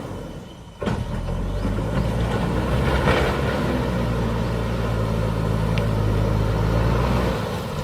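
JCB backhoe loader's diesel engine running steadily. It comes in suddenly about a second in, with a brief louder clatter about three seconds in.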